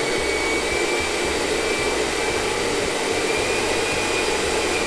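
80 mm electric ducted fan of an XFly Sirius model jet running at speed: a high, steady whine over a loud rush of air, beginning to wind down right at the end.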